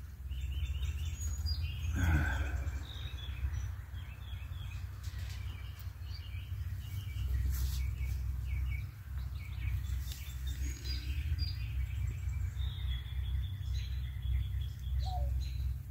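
Small songbirds chirping repeatedly in short phrases, with a steady low rumble underneath.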